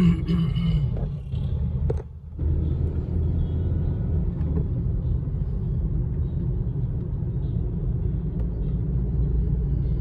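Steady low rumble of a car driving, engine and tyre noise heard from inside the cabin, with a brief drop-out about two seconds in.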